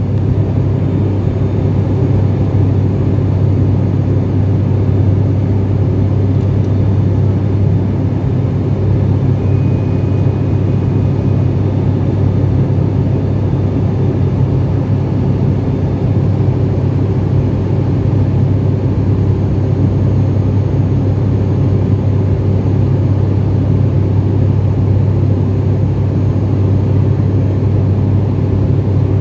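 Turboprop airliner's engines and propellers heard from inside the passenger cabin in cruise: a loud, steady low drone.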